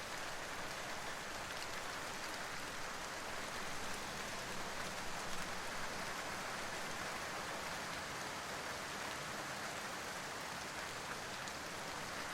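Steady rain falling, an even hiss of rain with no other sound in it.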